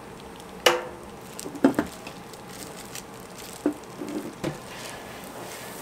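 Metal cooking utensils knocking on a street-food toast griddle: a sharp, ringing clank just under a second in, then a few lighter knocks, over a low steady sizzle.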